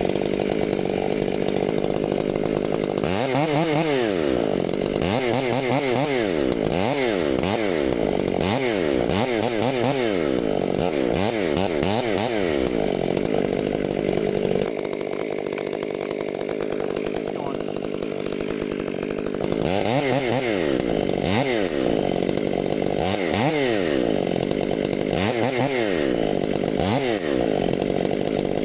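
Chainsaw running, its engine note swinging up and down about once a second. For a few seconds in the middle it runs steadier and a little quieter.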